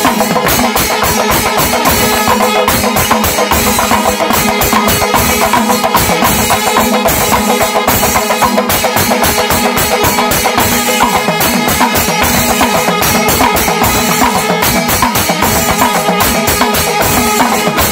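Kerala temple percussion ensemble: rapid, dense chenda drumming under held blasts of kombu, long C-shaped brass horns.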